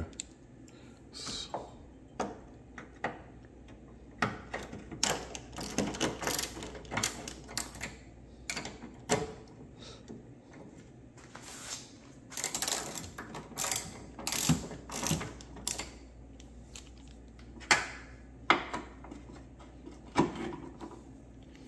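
Hand ratchet clicking in runs as it turns a 15 mm socket on an engine mount bolt, loosening it. A few louder sharp clicks stand out near the end.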